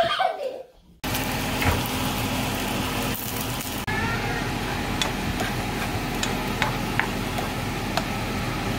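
Scrambled eggs sizzling steadily in a nonstick frying pan while being stirred with a spatula, with scattered light clicks of the spatula against the pan.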